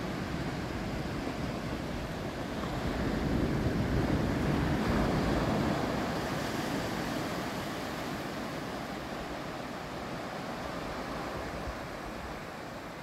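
Small surf breaking and washing up a sandy beach, swelling about three seconds in and then slowly dying away, with some wind on the microphone.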